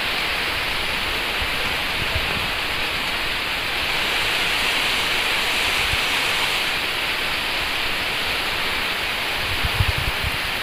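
Heavy tropical rain pouring down in a steady hiss, with a few low bumps near the end.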